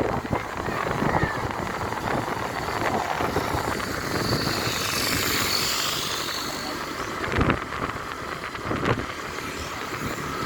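Road traffic noise from moving vehicles: a steady rush that swells with a passing hiss in the middle, and two sharp knocks in the second half.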